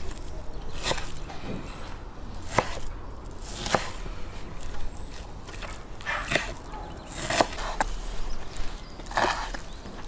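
Kitchen knife cutting raw wild boar meat into chunks on a wooden cutting board: a knock of the blade meeting the board about once a second, unevenly spaced.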